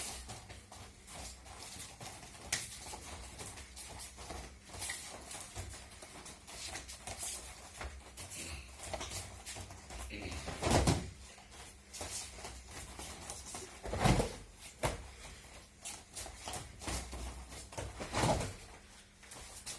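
Aikido practice on mats: irregular soft thuds, scuffs and taps of bodies and feet, with three heavier thuds spread through, typical of partners taking falls.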